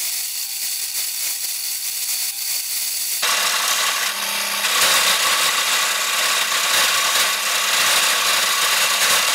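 Wood lathe spinning a long wooden spindle, with a carbide turning tool cutting into the wood from about three seconds in: a sudden, steady scraping hiss of the cut over the lathe's hum.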